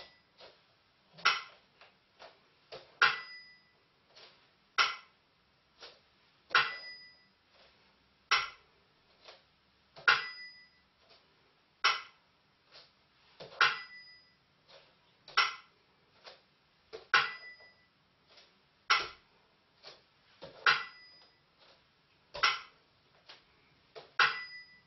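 A Burmese si and wa beat: a small bell and a clapper struck in turn, one strike about every 1.8 s, every other strike a short bell ring, with softer taps in between, keeping time for the dance steps.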